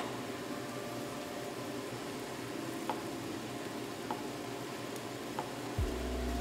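Spicy rabokki broth simmering and bubbling in a white ceramic pan while a wooden spoon stirs the ramen noodles and rice cakes, with a few light taps of the spoon against the pan.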